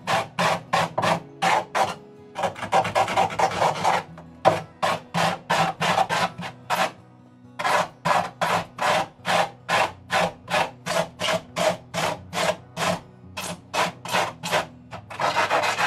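Knife edge scraping and carving green florist's foam in quick repeated strokes, about three a second, with a few short pauses and a couple of stretches of fast continuous scraping, shaving the foam to soften a hillside contour.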